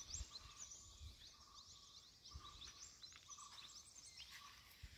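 Quiet outdoor ambience of birds chirping: many quick, high, rising notes in a steady chorus.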